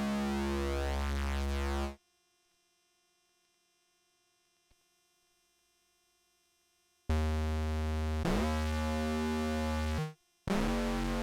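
Behringer Phara-O Mini analogue synthesizer playing held notes with a bright tone full of overtones, dry with no effects. A sustained note cuts off about two seconds in, a gap follows, then a new note comes in past the middle and slides up in pitch, and a second note starts near the end.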